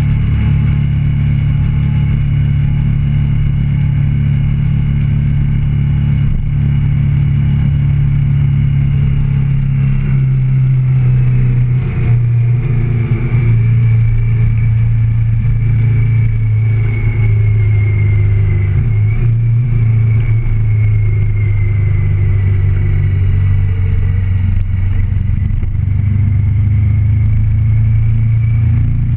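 Motorcycle engine running steadily while riding at road speed, its pitch stepping down a little about ten seconds in, with a thin high whine over it.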